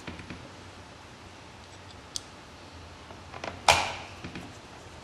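Handling noises as the plastic starter housing is fitted back onto a Craftsman chainsaw and screwed down: scattered small clicks, one thin high click about two seconds in, and a loud sharp clack about three and a half seconds in.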